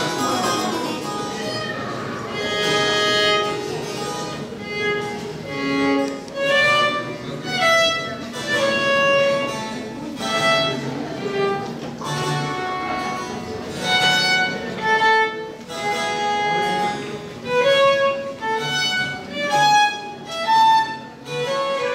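Violin and harpsichord playing a duo: a bowed violin melody of held and moving notes over the harpsichord's plucked accompaniment.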